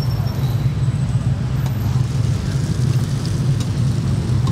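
Steady low rumble of roadside street traffic.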